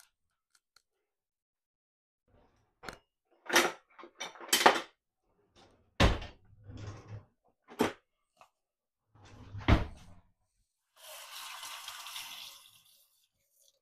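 Kitchen cupboard doors and drawers knocking open and shut, about six separate knocks, then a kitchen tap running for about two seconds near the end.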